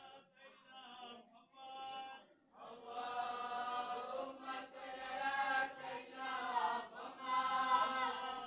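A group of voices chanting together in unison, faint and broken at first, then, from about two and a half seconds in, louder in long held phrases with short breaths between them. No drums are struck.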